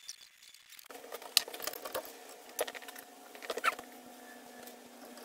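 Light clicks and taps of metal parts being handled on a Land Rover clutch pedal box, over a steady hum that starts about a second in.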